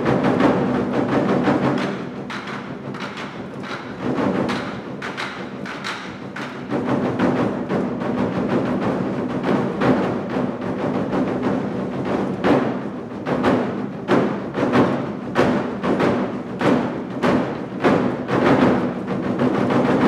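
An ensemble of Twenty-Four Festive Drums, large Chinese drums beaten with sticks, playing a driving rhythm. It drops quieter about two seconds in, then builds again into dense, rapid strokes.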